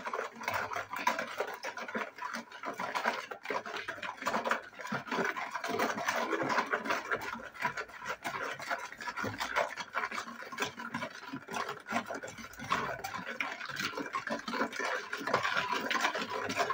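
Wire balloon whisk beating a liquid cake mixture of milk, yogurt, oil and melted butter by hand in a plastic bowl: a quick, continuous scraping and clattering of the wires against the bowl.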